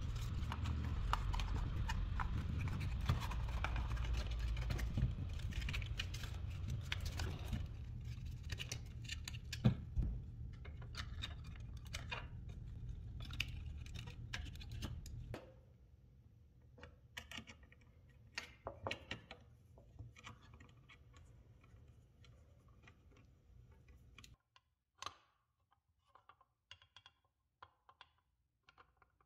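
Small metal parts clicking and knocking against the metal case of a 1970s flashlight as its inside is fitted together and the lid closed, in scattered irregular clicks. A steady low hum runs underneath for about the first half and then drops away.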